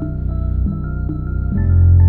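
Mellow ambient electronic music played on an Elektron Digitakt II sampler: held chords with short melody notes changing every half second or so, and a deep bass note coming in about one and a half seconds in.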